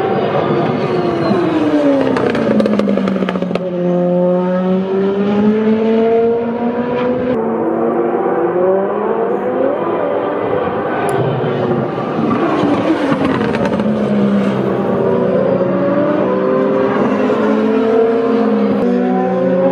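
Several Super Formula race cars (Dallara SF14, 2-litre turbocharged four-cylinder engines) running past one after another, their engine notes overlapping. Pitches keep falling and then climbing again as the cars lift, downshift and accelerate away.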